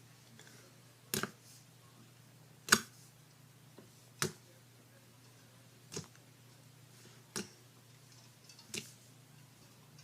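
Homemade slime being squeezed and folded by hand, giving sharp popping clicks as trapped air bursts, about six pops roughly every one and a half seconds.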